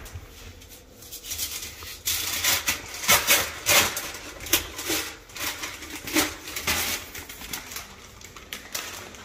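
Irregular rustling and scraping strokes of something being handled or rubbed, a quick run of them from about two seconds in that dies down near the end.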